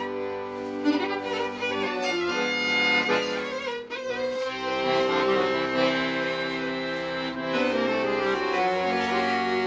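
Violin and piano accordion playing a tune together: the fiddle carries the melody over sustained accordion chords and bass notes that change every few seconds.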